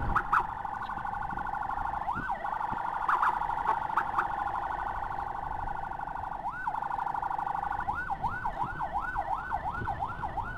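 Electronic emergency siren holding a steady high tone, broken by a couple of single up-and-down sweeps. About eight seconds in it switches to a fast yelp of about three up-and-down sweeps a second.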